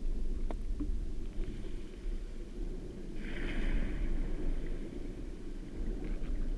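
Muffled underwater noise picked up by a GoPro in its waterproof housing on a shallow sandy seabed: a steady low rumble, with a brief hiss about three seconds in and a couple of faint clicks near the start.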